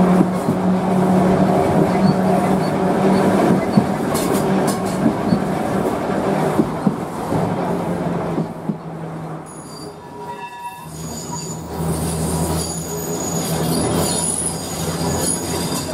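Vintage 1904 electric tramcar running on its rails, with a steady hum and rattle. About two-thirds of the way through it briefly quietens. Then high, thin wheel squeal sets in as the car takes a curve.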